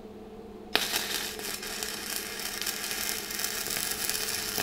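Stick (MMA) welding arc struck about a second in, then crackling steadily as an electrode welds a steel nut to a plate. The current is set low, the first cause the welder gives for the seam running onto the plate instead of fusing the nut. A steady low hum sits underneath.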